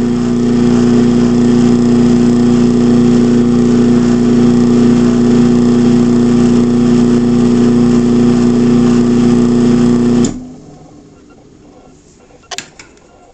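Craftsman half-horsepower chain-drive garage door opener running an opening cycle: a steady motor hum with a strong drone. It stops abruptly about ten seconds in as the opener reaches its limit, followed by a couple of faint clicks near the end.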